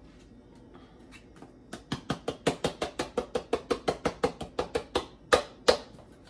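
Spice bottle shaken hard, a fast, even rattle of about six or seven shakes a second starting about a second and a half in, then two harder knocks of the bottle near the end.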